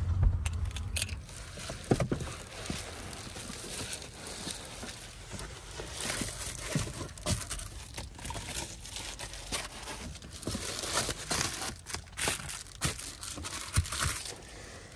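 Crinkly material being handled and rustled, with irregular clicks and a few low knocks, the loudest near the start.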